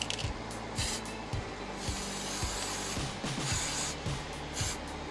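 Aerosol can of yellow acrylic spray paint hissing in several short bursts as it coats a masked wooden lure body.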